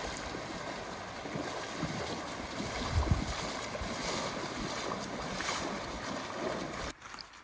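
Legs wading through a shallow river, splashing and churning the water, over the steady rush of the flowing stream. The water sound stops abruptly near the end.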